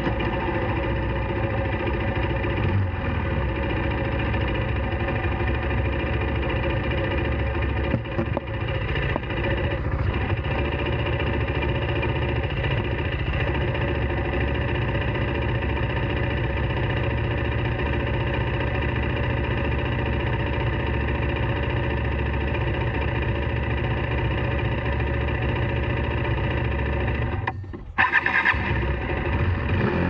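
KTM Duke 390's single-cylinder engine running at a steady pitch while riding. Near the end its sound drops away sharply for a moment, then picks up again.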